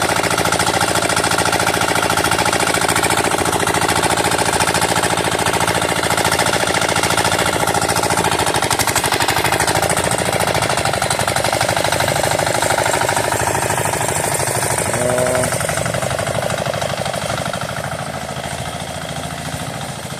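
Farm machine engine running steadily with a rapid pulsing beat, growing quieter over the last few seconds. A short pitched tone sounds briefly about 15 seconds in.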